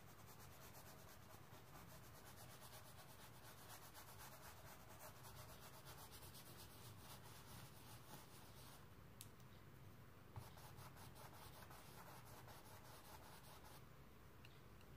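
Near silence with faint rubbing of a paintbrush blending oil paint on canvas, and one small tap about ten seconds in.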